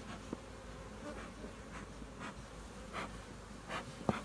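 Honey bees buzzing steadily over an opened hive, with several short hissing puffs from a bee smoker. A sharp click comes near the end.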